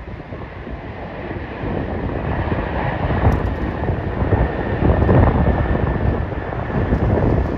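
Jet airliner engines running at taxi power: a low rumble with a steady high whine that grows louder about halfway through, under wind buffeting the microphone.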